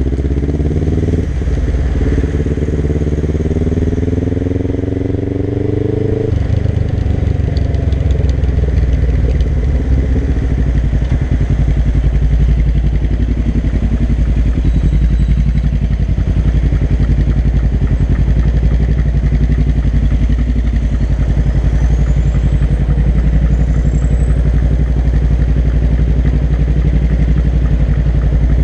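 Suzuki GS500's parallel-twin engine through a Dominator GP I aftermarket exhaust: it revs up, briefly drops at a gear change, and climbs again for about five seconds. Then the throttle is shut abruptly about six seconds in, and the engine settles into a steady, even idle while the bike stands in traffic.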